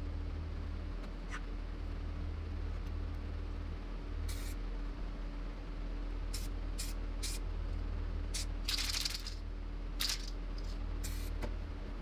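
2K clear-coat aerosol can spraying in short hisses: about eight quick bursts from about four seconds in, the longest lasting about half a second near nine seconds in.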